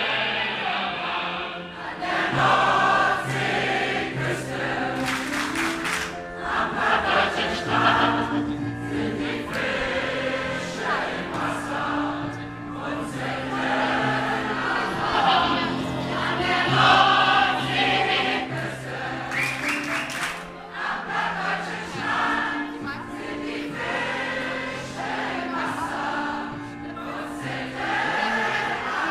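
A large group of people singing a song together from song sheets, over an instrumental accompaniment.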